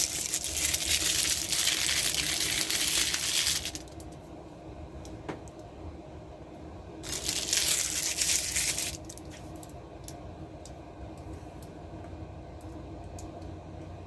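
Dry cat kibble poured into a bowl, rattling, in two pours with a pause between; scattered single clicks of pieces follow.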